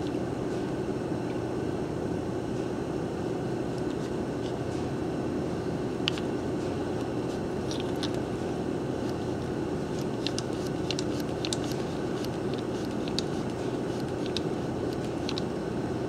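Steady low hum of workshop background noise, with scattered light clicks and ticks, most of them in the second half, as a homemade clamp jig is worked to press a brass splice fitting into nylon fuel line.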